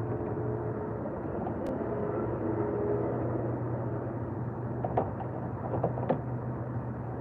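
Steady low hum, with a few light metallic clicks of a hand tool working in a car's engine bay between about five and six seconds in.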